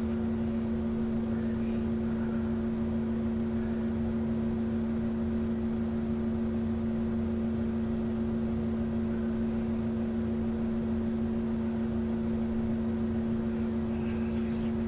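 Steady mechanical hum with two held low tones and an even hiss, unchanging throughout.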